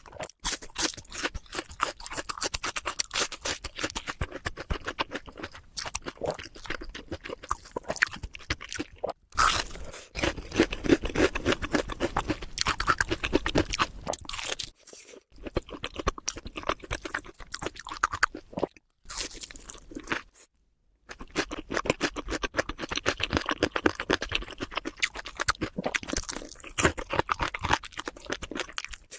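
Close-miked chewing and crunching of food, a rapid run of wet, crackly bites and chews that stops briefly a few times.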